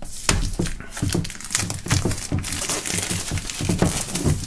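Plastic shrink-wrap film being peeled and pulled off a metal box, crinkling and crackling irregularly.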